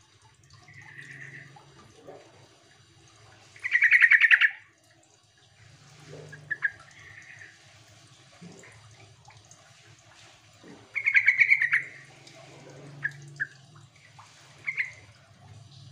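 Yellow-vented bulbul calling: two loud, quick-pulsed chattering phrases, about four seconds in and again near eleven seconds, with softer short notes in between.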